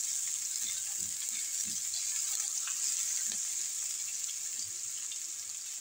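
Chopped onion frying in hot oil in a frying pan: a steady, high sizzle with small crackles scattered through it.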